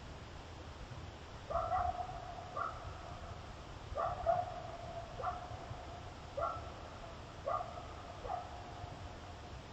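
Coyote barking: about seven sharp barks starting about a second and a half in, each trailing off into a short drawn-out, howl-like note.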